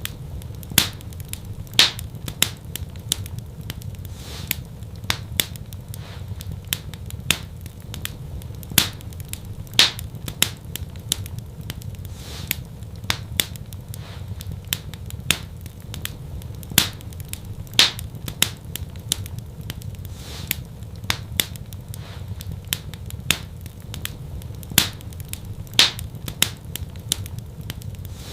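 Wood fire in a fireplace crackling: many sharp irregular pops and snaps, a few a second with an occasional louder one, over a steady low rumble of the flames.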